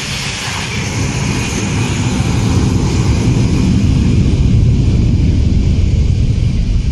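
Loud rumbling noise with a hiss from a DHL Boeing 757 freighter skidding down the runway with smoke streaming from its landing gear, swelling about two seconds in as the jet slews sideways.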